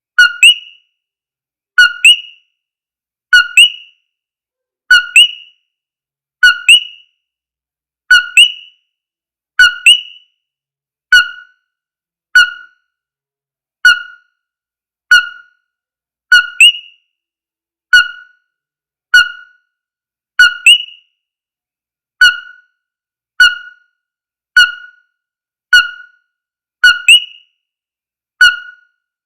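Coquí frog calling its two-note 'co-quí', a lower note then a higher one, repeated over and over about every one and a half seconds with clean silence between calls.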